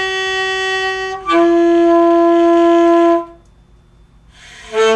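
Alto saxophone played by a young student, holding long steady notes: a softer note that steps down at about a second in to a loud, full held note lasting about two seconds, then a short pause before a new, lower note begins right at the end.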